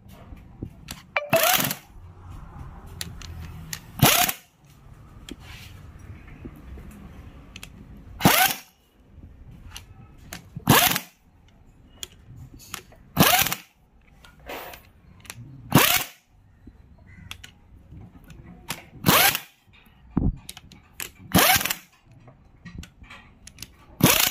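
A power tool run in short bursts, about nine of them, one every two to three seconds, with a low rumble between them.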